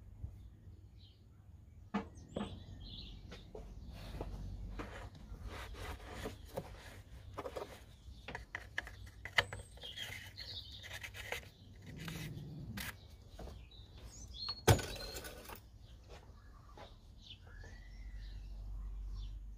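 Birds chirping in the background, with scattered clicks and knocks of things being handled and one sharp knock about fifteen seconds in.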